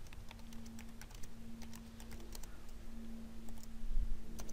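Typing on a computer keyboard: quick, irregular key clicks, with a faint steady low hum underneath.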